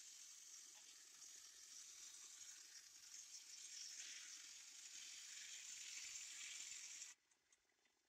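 Circular table saw blade ripping a wooden board lengthwise: a faint, steady hissing rasp that stops abruptly about seven seconds in.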